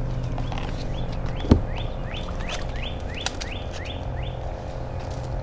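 A bird calling a quick run of short rising chirps, about two a second, over a steady low hum. A single sharp knock about one and a half seconds in is the loudest sound, with a lighter click a couple of seconds later.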